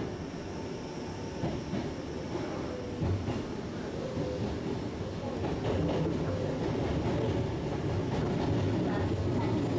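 Sanyo Electric Railway electric train running, heard from inside the driver's cab: a steady low rumble with a few short knocks, growing louder about halfway through.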